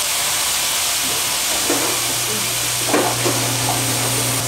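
Chicken browning in olive oil in a skillet on a gas burner, sizzling steadily. A steady low hum comes in about a second in.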